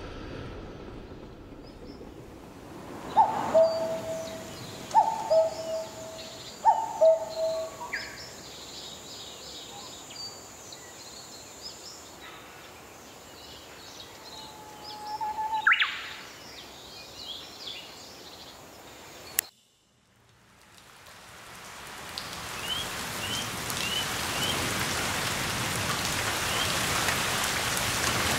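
Birds calling over a noisy background, among them three two-note calls that step down in pitch, with short high chirps between. A sharp click cuts everything off for a moment, then steady rain fades in and grows louder.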